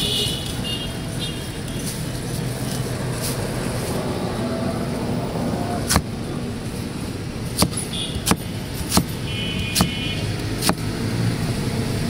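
A kitchen knife cutting a green guava on a small wooden chopping board, striking the board in six sharp knocks about a second apart in the second half. A steady hum of street traffic runs underneath.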